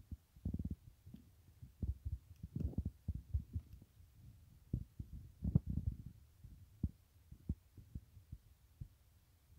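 Irregular dull, low thumps and rumbles of handling noise on a phone microphone as drumstick pods are grasped and picked by hand, most of them in the first six seconds.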